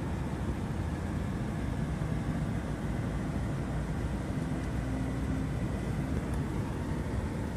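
Steady low rumble of an idling engine, with a faint hum and no sudden sounds.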